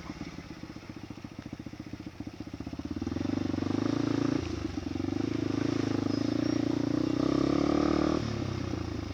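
Motorcycle engine running with rapid firing pulses. It grows louder about three seconds in, dips briefly, pulls hard again, then eases off near the end.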